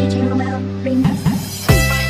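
Background electronic music with sustained synth chords, and a beat of deep kick drums coming in near the end.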